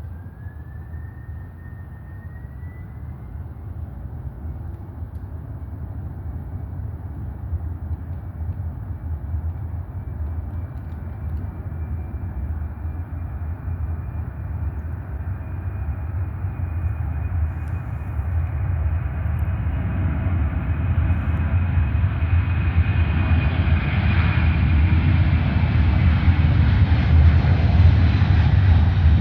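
Boeing 767 twin turbofan engines at takeoff power. A thin whine rises in pitch over the first couple of seconds as they spool up, then holds over a deep rumble that grows steadily louder.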